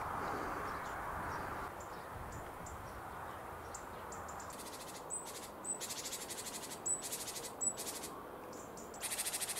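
Footsteps crunching through frosty dry leaf litter, short crackly steps about a second apart from about five seconds in, with faint high ticks between them.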